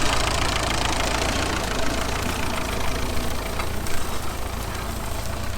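Tractor engine running steadily at low revs.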